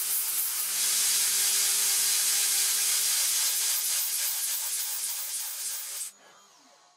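Light CNC router milling a 6060 aluminium block with an end mill: a dense, steady hiss of the cut over a steady spindle hum. It fades and then drops out abruptly about six seconds in.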